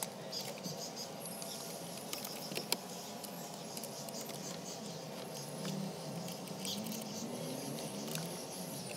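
Scattered small clicks and scratching of hands handling car dashboard parts and wiring, over a steady background hiss; one sharper click about two and a half seconds in.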